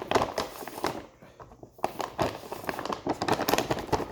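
Rapid, irregular crackling and clicking, the sound of something being handled or crumpled close by.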